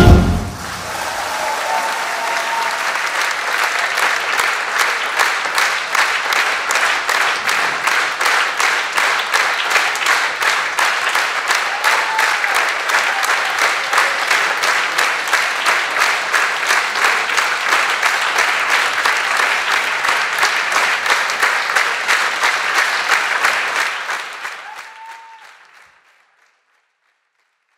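Concert audience applauding after the music ends: dense clapping that soon settles into a steady, regular beat, then fades away near the end.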